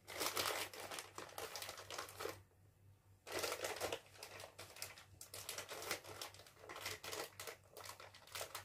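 Small plastic packet of screws crinkling as it is handled and opened by hand, in bursts of crackling with a short lull about two and a half seconds in and lighter rustling after.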